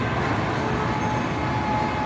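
Steady city street traffic noise, with a faint, thin held tone, likely a distant car horn, coming in from about halfway through.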